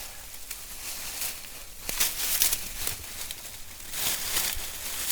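Dry leaves and forest debris being scooped up and tossed onto a lean-to shelter, rustling and crunching in two bursts, about two seconds in and again near the end.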